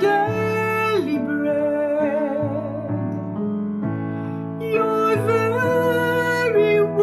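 A woman singing a slow worship song with long held notes, accompanied by piano.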